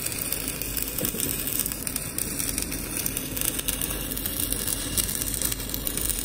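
Stick (arc) welding on a steel pin: the arc crackles and sizzles steadily as a bead is laid.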